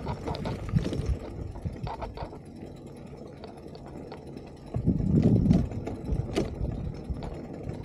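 Beach cruiser bicycle rolling over rough grass and rocks: a steady low rumble with scattered rattles and clicks, louder for a moment about five seconds in.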